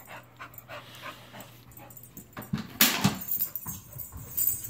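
A dog whimpering, with a steady low hum; about three seconds in, a short sharp burst as an iFetch Too automatic ball launcher fires a ball.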